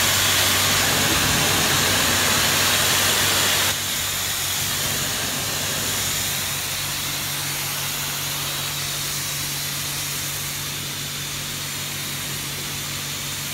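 Pressure-washer lance spraying a car's bonnet: a loud, steady hiss of the water jet that drops to a quieter hiss a few seconds in. A steady low machine hum runs underneath.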